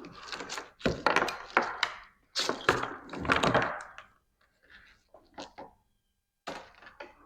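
Wiring harness being handled on a bench: rustling of the wire bundles with clunks and clicks of its plastic connectors, in several bursts over the first four seconds and a few fainter knocks near the end.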